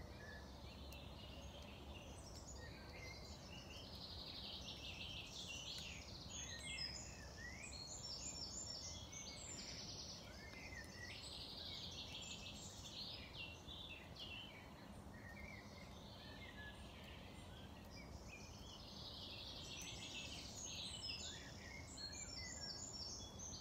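Dawn chorus of several songbirds singing at once: overlapping chirps and trills, faint, over a low steady background hiss.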